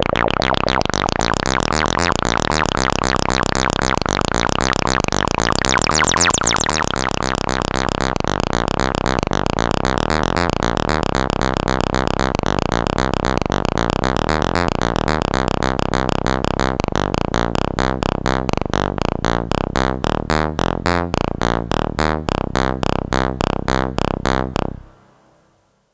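Behringer Odyssey analog synthesizer playing a fast, repeating pattern of pitched notes, with a brief, louder, brighter burst about six seconds in. Later the notes become separate short pulses, then the sound cuts off shortly before the end.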